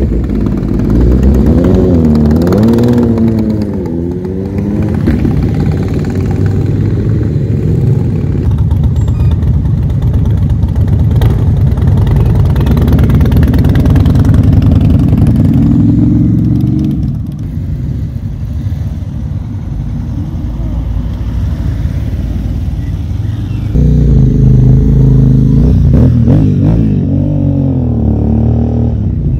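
Several motorcycles ride past one after another as they pull away. A sport bike's engine revs up and down through the gears at the start. A V-twin cruiser passes with a low, steady rumble midway, and near the end another bike revs loudly with rising and falling pitch.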